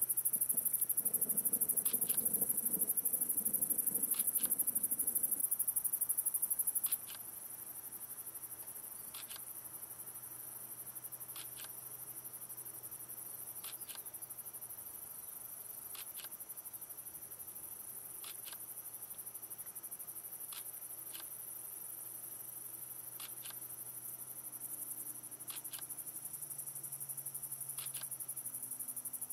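Night insect chorus: a steady high-pitched trill with short chirps about every two seconds, dropping suddenly in level about seven seconds in. A low rumble sits under it for the first few seconds.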